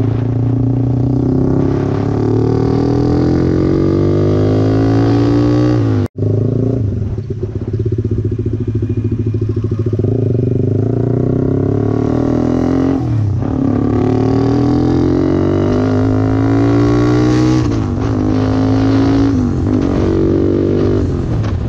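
Motorcycle engine heard from the rider's seat, accelerating hard: its pitch climbs steadily and falls back at each gear change, several times over. The sound cuts out for an instant about six seconds in.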